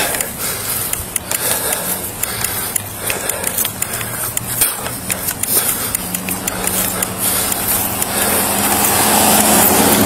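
Footsteps and clothing rubbing against a body-worn camera as the wearer walks. From about six seconds in, a vehicle's engine hum grows louder as a pickup truck comes up and passes close by near the end.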